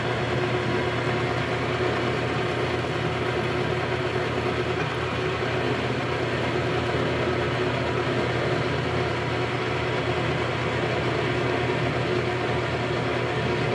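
Metal lathe running with a steady hum, its chuck spinning a metal workpiece while a drill bit is fed into it from the tailstock.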